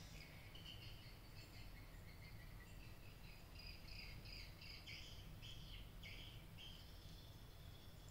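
Near silence: faint room tone with a low hum and a continual patter of faint, high-pitched chirps in the background.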